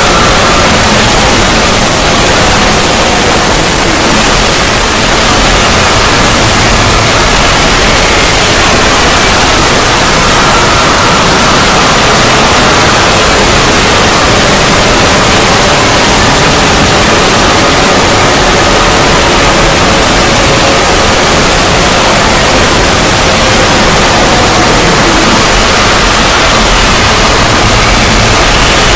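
Loud, unbroken static-like noise, with faint tones beneath it that drift slowly up and down in pitch: an edited, distorted 'void' logo sound effect.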